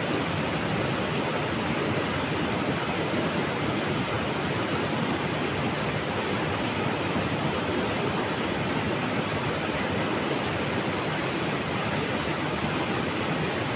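River water rushing steadily over rocks and through a stone weir, an even unbroken rush.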